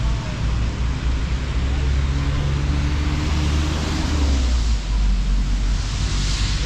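Street traffic on a wet road: a vehicle's engine hum rises and fades in the middle, and tyres hiss on the wet pavement near the end.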